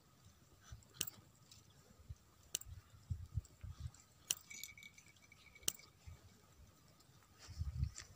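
Scissors snipping woollen yarn to trim the tassels on a handmade bag: a few sharp, separate snips about a second and a half apart, with soft handling thumps between them.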